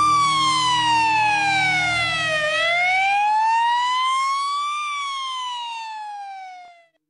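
Ambulance siren wailing, its pitch sliding slowly down, then up, then down again, over a low rumble that drops away about halfway through. The siren fades out near the end.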